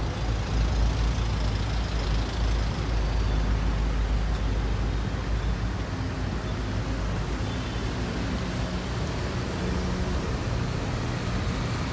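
A minibus and then a heavy fire engine driving slowly past, their engines running with a steady low rumble.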